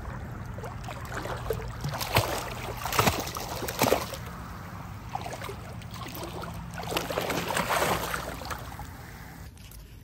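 Shallow seawater splashing and sloshing around a wading golden retriever puppy, with several louder splashes about two to four seconds in and again near eight seconds. The water sound cuts off abruptly just before the end.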